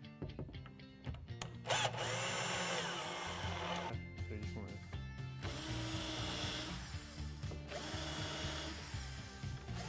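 Cordless drill-driver running in two spells, with a short break about four seconds in, driving screws to fix the cabinet bracket, over background music.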